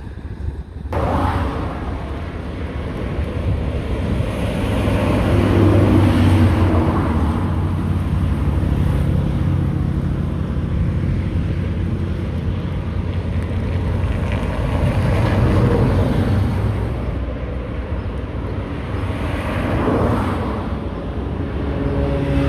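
Road traffic going past: a steady rumble of engines and tyres, with vehicles swelling up and fading away several times, loudest about six seconds in and again around fifteen and twenty seconds.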